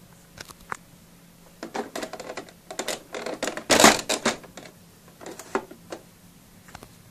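Irregular clicking and tapping of hard plastic from handling a LeapFrog Phonics Writing Desk toy, with no voice from the toy. The clicks come thick from about a second and a half in, loudest about four seconds in, then a few scattered ones near the end.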